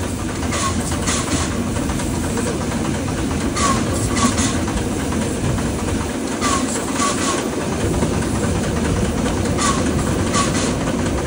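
Steam train running along the track, its wheels clicking over rail joints in short clusters about every three seconds.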